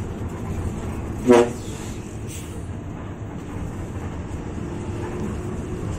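Steady engine and road rumble inside the cabin of a moving Hino RK8 bus, with one brief, loud horn toot about a second in.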